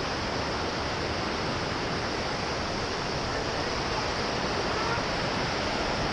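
Steady rushing of a waterfall: a continuous, even roar of falling water.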